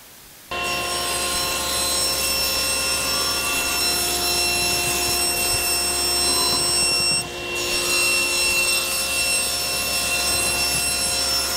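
Table saw running and ripping 3/4-inch plywood panels: a steady, loud machine whine that starts abruptly about half a second in and dips briefly about seven seconds in.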